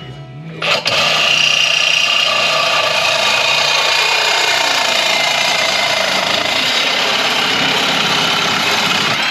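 Power tool running steadily and loudly for about eight seconds, starting about a second in and stopping just before the end.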